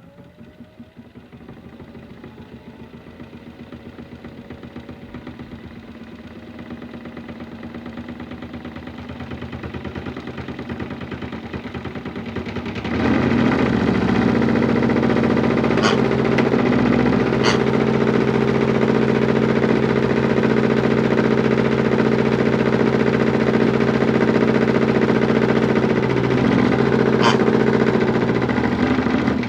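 Modified toy washing machine's small electric motor spinning the drum, rising in pitch and getting louder over the first dozen seconds, then about 13 seconds in jumping to a loud, steady spin. A few sharp knocks sound during the spin, and it begins to wind down at the very end.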